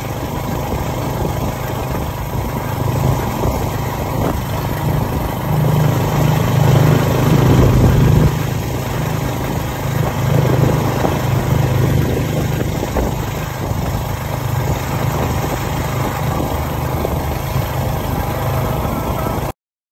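Engine and road noise from a small vehicle in motion, heard from on board through its open side: a steady low engine hum under a rush of wind and tyre noise that swells a little partway through, then cuts off abruptly near the end.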